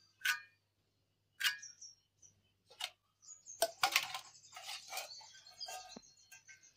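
Drumstick (moringa) pods being cut into pieces on an aruvamanai, a floor-mounted curved blade: several sharp cracks about a second apart, busier about four seconds in, with birds chirping faintly in the background.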